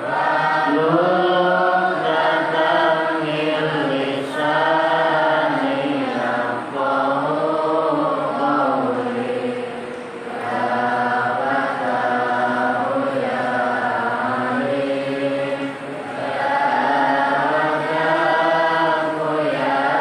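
A man chanting into a handheld microphone: one voice holding long melodic notes that bend slowly up and down, with brief breaths about halfway through and again later on.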